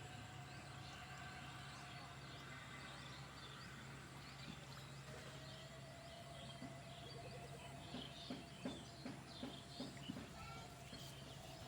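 Birds chirping and calling over a faint steady low hum, with a run of soft, irregular knocks in the second half.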